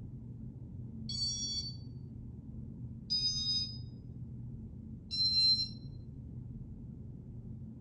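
Casablanca Panama ceiling fan running with a steady low hum, and three short electronic beeps about two seconds apart from its Intelli-Touch control.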